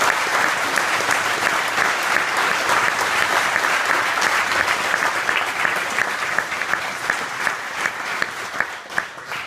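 Applause from a small group clapping by hand, dense and steady at first, thinning to scattered separate claps near the end.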